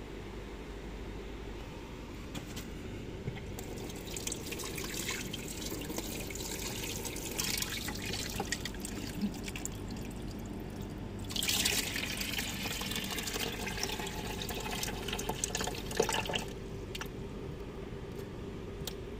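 Water running from a small chrome wall tap and splashing over a hand being washed. It starts a few seconds in, gushes louder a little past the middle, and stops near the end.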